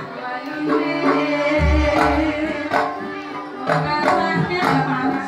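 Live Javanese gamelan playing: metallophones ringing in a steady beat over hand-drum (kendang) strokes, with a deep low stroke swelling about one and a half seconds in.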